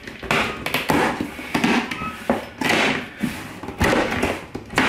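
Cardboard bike box being torn open along its tear strip and its lid pulled up: a series of rough tearing and scraping strokes of cardboard, with a few thumps.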